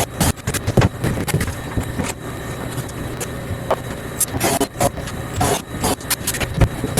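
Irregular knocks, clicks and scraping from tools working apart the boat bench's old riveted boards, over a steady low hum.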